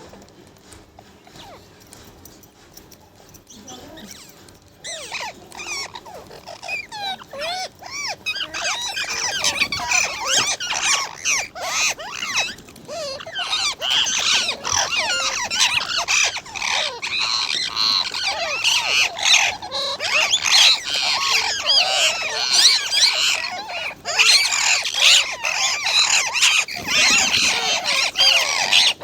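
Many parrots squawking and chattering at once, a dense overlapping din of shrill calls that starts about five seconds in and grows fuller and louder toward the end.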